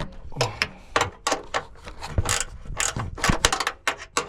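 Hand ratchet wrench clicking in quick repeated strokes while a 10 mm bolt is being loosened, about three to four clicks a second.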